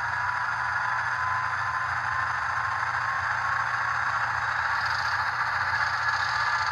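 ESU LokSound V5 sound decoder in an HO-scale Kato Amtrak F40PH playing the diesel prime mover in HEP mode, held at notch 8 as when supplying head-end power to the cars. It is a steady engine drone from the model's small onboard speaker.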